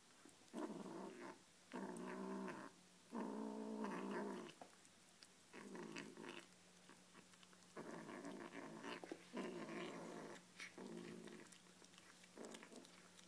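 Ginger kitten growling over pieces of chicken in about eight bouts of roughly a second each with short pauses between them: guarding its food.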